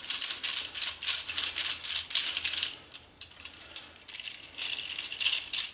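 Rapid rattling and clicking of small hard objects being rummaged through, with a short lull about halfway through.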